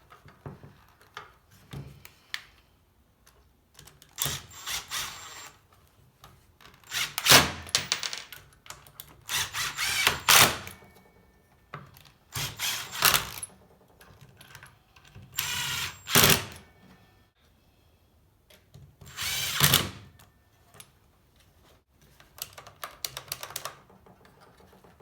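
Power drill/driver running in several short bursts of a second or less, with pauses between, as the bolts holding a circular saw's housing together are driven back in.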